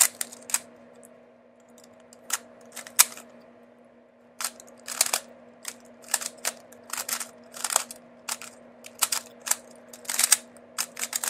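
Stickerless Cyclone Boys 3x3 speed cube being turned by hand: irregular plastic clicks and clacks of its layers snapping round, a few scattered ones at first and then quicker runs of turns. The cube tends to lock up and catch on turns that are not well aligned, since it cannot corner-cut much.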